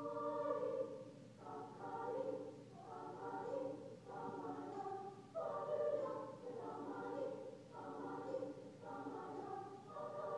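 Choir singing sustained chords in short phrases, one after another, heard from the seats of a concert hall.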